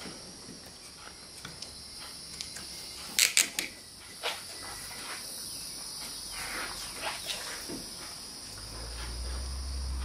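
Short sharp clicks and crackles as a rubber windshield moulding and its tape backing are handled and pressed into place. A quick cluster of clicks comes about three seconds in, then scattered faint ticks. A low rumble builds near the end.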